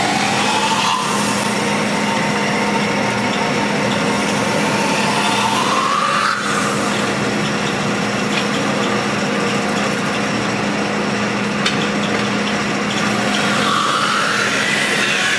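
Metal spinning lathe running with a steady hum while a hand-levered roller tool presses on the rotating sheet-metal disc. The tool on the metal gives a squeal that rises in pitch about six seconds in and again near the end.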